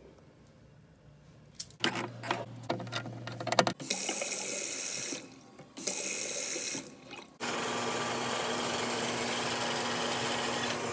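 Water from a pull-down kitchen faucet running into a stainless steel sink. It starts and stops abruptly several times, after a few clicks and knocks of handling. The last and longest run has a low steady hum under it.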